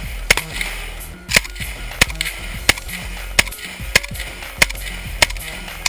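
Background music with a steady beat, punctuated by sharp, evenly spaced hits about every two-thirds of a second.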